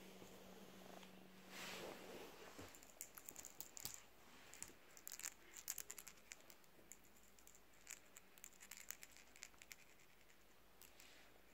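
Faint purring of a seal-point kitten, with a rustle about two seconds in followed by scattered light clicks.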